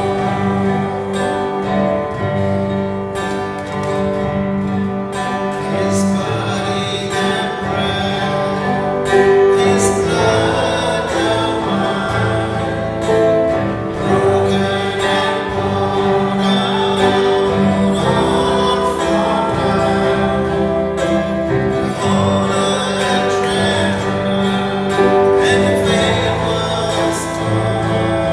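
Church worship band playing and singing a communion hymn: voices over strummed acoustic guitar, a second guitar and keyboard.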